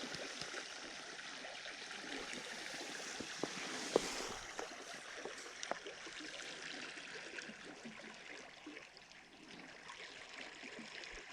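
Creek water flowing, a steady rushing hiss, with a few faint clicks and knocks, the sharpest about four seconds in.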